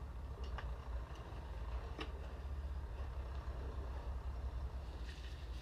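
A few sharp metal clicks and knocks as a steel bracket's pins are worked into place on a slurry tanker, over a steady low rumble.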